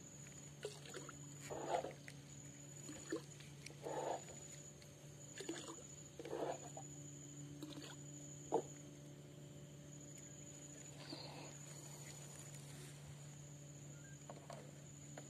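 Faint, uneven knocks and rustles of a fishing rod and spinning reel being handled aboard a small boat. A steady low hum and a high, pulsing tone run underneath.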